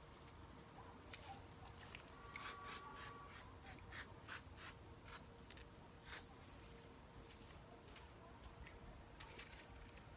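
Faint rustling and a quick run of light clicks and scratches between about two and six seconds in, as hands work in a vegetable bed under garden netting, over a faint steady hum.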